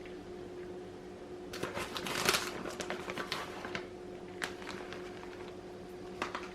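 Crinkling and rustling as shredded mozzarella cheese is added to a bowl, in a cluster of strokes about two seconds in, then a few lighter taps and rustles. A steady low hum runs underneath.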